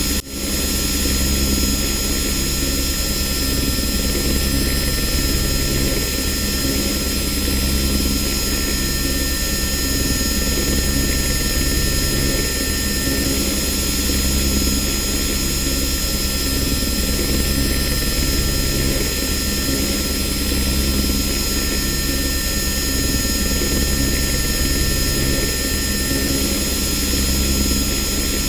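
Helicopter running steadily, its rotor making a fast, even chop in the low end with steady high-pitched tones above it.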